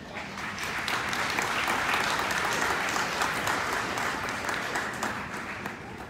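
Large crowd applauding, a dense patter of many hands that swells just after the start and dies away about five seconds in.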